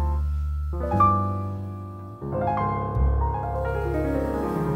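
Background piano music: slow chords struck about once a second, each left to ring and fade.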